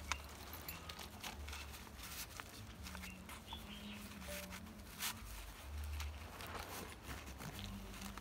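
Faint rustling and scattered small clicks of hands handling cloth and a straw-bound bundle while wrapping it, with some low rumble.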